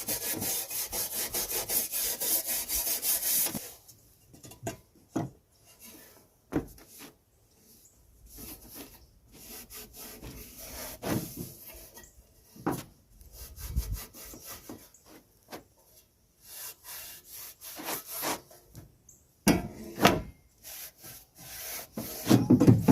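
Wire brush scrubbing a sheet-metal tiller fender in fast back-and-forth strokes, stopping about three and a half seconds in. Scattered clicks and knocks of metal parts being handled follow.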